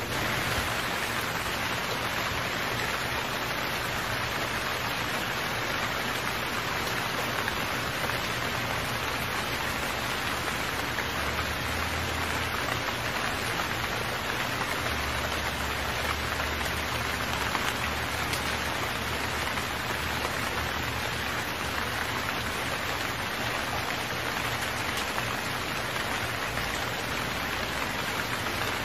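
Heavy rain falling steadily: a dense, even hiss of drops on surfaces, with no breaks.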